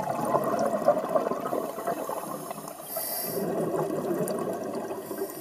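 Underwater ambience picked up by a dive camera: dense crackling and bubbling, with a brief high hiss about three seconds in.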